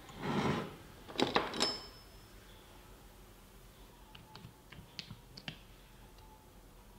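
A brief rustle, then three sharp metallic clicks from pliers handling a soldered wire and nickel tab about a second in. Later, a few light clicks and taps as a nickel strip is pressed into the plastic battery case.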